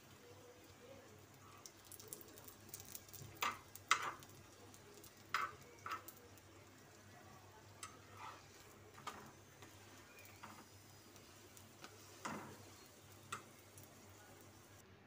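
Slotted metal spatula knocking and scraping against a flat griddle (tawa) while a paratha is turned and pressed: about ten light clicks at uneven intervals, the loudest about four seconds in.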